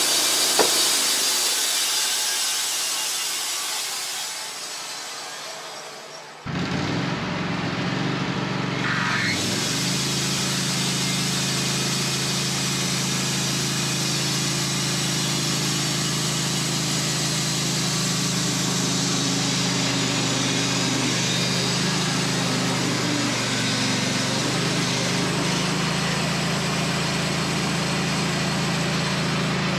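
Wood-Mizer LT15 band sawmill running: a steady engine hum under the broad hiss of the band blade sawing through maple. Over the first few seconds a hiss fades away, then the mill sound cuts in abruptly about six seconds in and holds steady.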